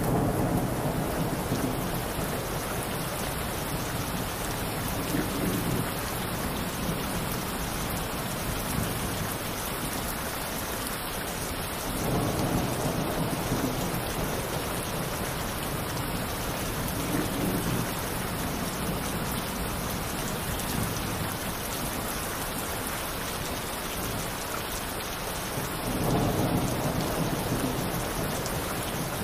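Recording of steady heavy rain with rolling thunder: an even rain hiss throughout, and low rumbles that swell up several times, loudest about twelve seconds in and near the end.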